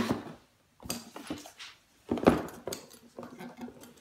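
A spiked leather dog collar handled and set on a cardboard box: its metal spikes and studs clink, with a few sharp knocks, the loudest about two seconds in.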